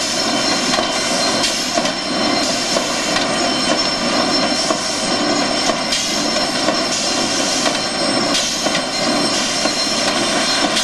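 Corrugated box-making machine running steadily, its lead-edge vacuum feeder feeding sheets from the stack. It makes a loud, even mechanical din with several steady tones and small irregular clicks.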